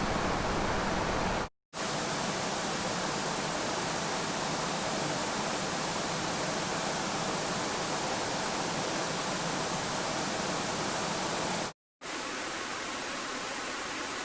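Television no-signal static: a steady hiss of noise across the whole range. It cuts out completely twice for a split second, about a second and a half in and again near the end, and sounds thinner in the low end after the first break.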